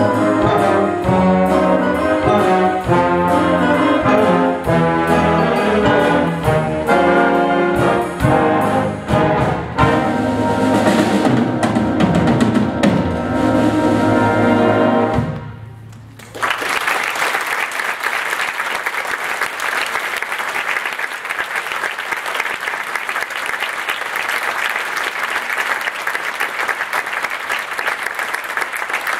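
School wind ensemble playing a swing arrangement, brass to the fore with percussion, ending on a long held chord about halfway through. After a brief pause the audience breaks into steady applause.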